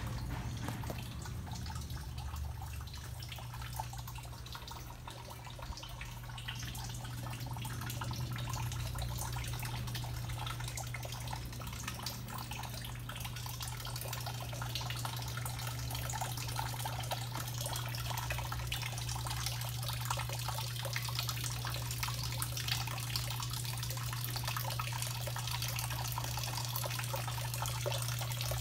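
Water running from PVC pipe outlets into the tanks and barrels of an aquaponic system, a steady trickling and splashing that grows a little louder in the second half, over a steady low hum.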